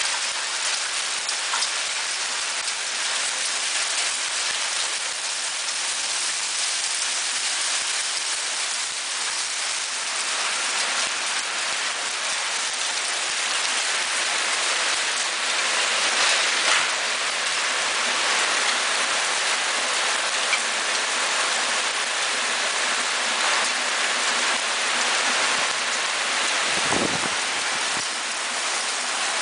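Hailstorm with heavy rain pelting clay roof tiles and a lawn: a steady, dense hiss with scattered small ticks of stones striking. A brief low rumble comes near the end.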